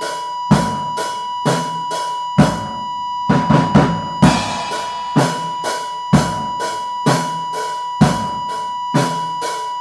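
Drum kit playing a slow, even beat of kick and cymbal hits about once a second, with a short fill of quick strikes about three and a half seconds in, over a constant high-pitched tone.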